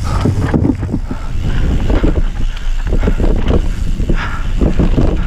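Wind buffeting the camera microphone as a low rumble, with the rattle and knocks of a mountain bike riding over a rough dirt singletrack.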